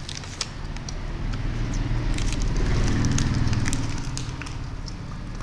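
Plastic wrapper of a tube jelly candy crinkling and crackling in the hands, with scattered sharp ticks. Under it, a low rumble swells to its loudest in the middle and then fades.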